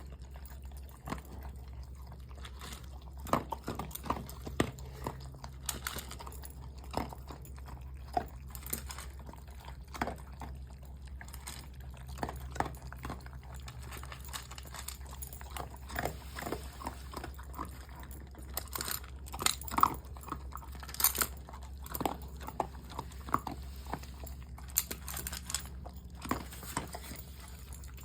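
A pet chewing and crunching food, with irregular sharp crunches and clicks, over a steady low hum.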